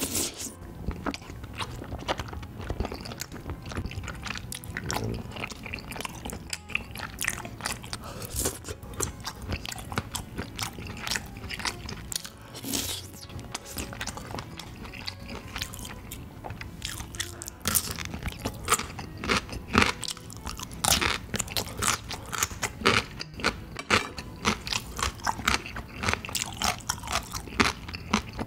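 Close-miked chewing of tteokbokki, chewy rice cakes in spicy red sauce: wet smacking and clicking mouth sounds, busier and louder in the second half.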